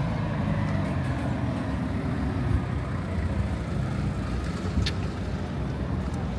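Street traffic: a motor vehicle's engine running close by, a steady low tone that is strongest in the first couple of seconds. There is one short sharp click about five seconds in.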